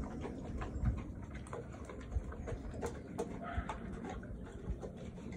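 Two Cane Corsos eating from stainless steel bowls: chewing and snuffling, with irregular clicks and low knocks as they work at the bowls.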